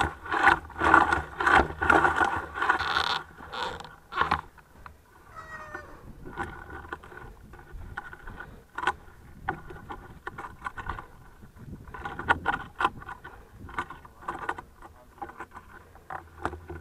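Harnessed dog on a bikejoring towline whining and panting, excited, while held waiting. It is loudest in the first few seconds, with scattered clicks and rustling from the gear throughout.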